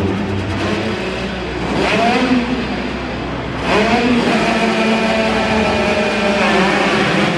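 A line of dirt bikes revving at the starting gate. The engines climb in pitch twice around the middle, then are held high and steady together.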